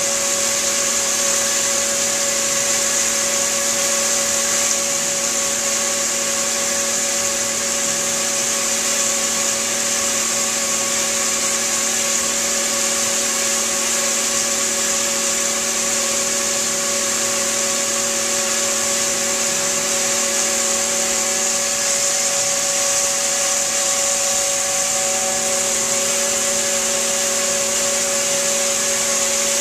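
CNC stone router spindle turning a diamond polishing wheel along a stone countertop edge under water spray: a steady hiss over a machine hum of several fixed tones. A couple of the tones drop out or shift slightly a little past twenty seconds in.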